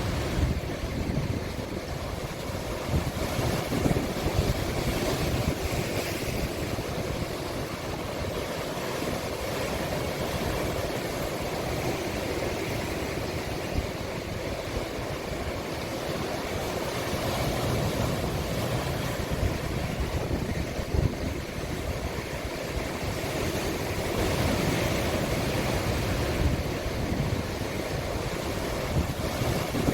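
Sea waves breaking as a continuous wash of surf, with wind buffeting the microphone.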